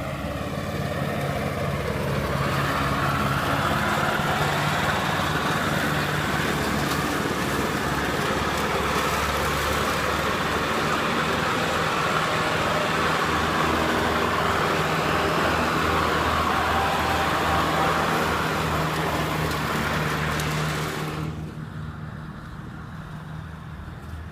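Riding lawnmower running steadily: a low engine hum with a loud hiss above it. The hiss and much of the loudness drop away abruptly about three seconds before the end, leaving a quieter engine hum.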